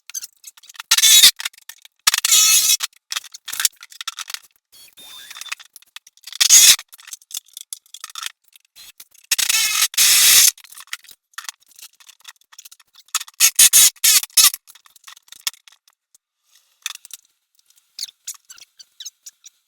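Scraping, cutting noises in short bursts of about a second, five times, with scattered light clicks and knocks between them.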